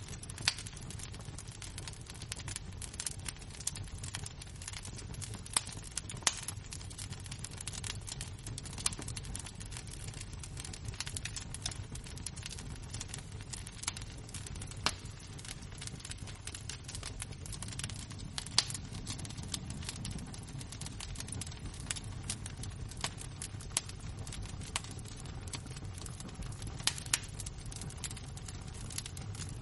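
Burning embers of a wood fire crackling: a constant scatter of small ticks with an occasional louder pop, over a low steady rumble.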